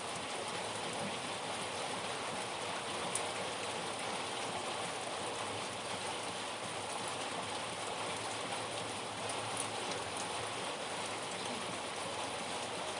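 Steady rain falling, an even hiss of rain on a surface, with a couple of faint ticks.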